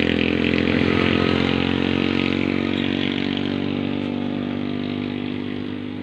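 A motorcycle engine running steadily at a low, even speed, slowly growing quieter.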